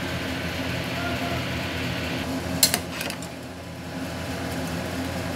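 Steady fan-like hum in the kitchen, with a spoon clinking sharply against the cooking pot about two and a half seconds in, then once more lightly.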